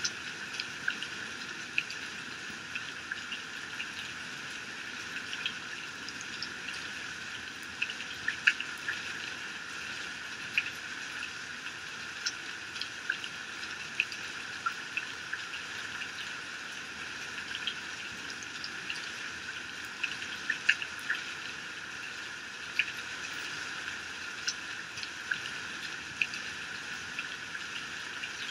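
Heavy rain pouring steadily, a dense even hiss with many sharp, irregular drop impacts standing out above it.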